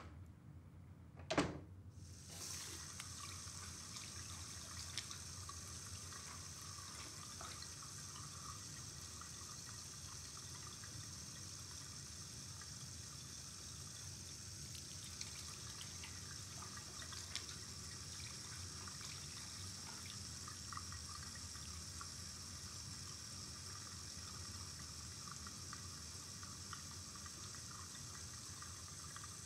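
A sharp knock about a second in, then water starts running and keeps up a steady hiss, as from a bathroom tap or shower.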